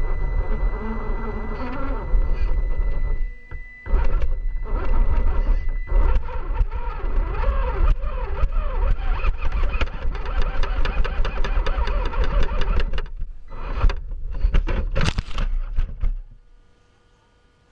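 Axial SCX10 II RC crawler's electric motor and geared drivetrain whining and buzzing as it drives, heard close up through a camera mounted on its body, over a low rumble. The sound drops out briefly about three and a half seconds in and stops about sixteen seconds in.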